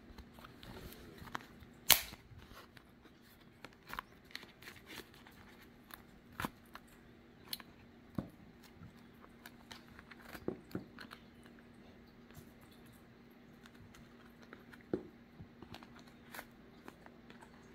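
Cat-toy packaging being torn open and handled: scattered tearing, rustling and small clicks, with a sharp snap about two seconds in, over a faint steady hum.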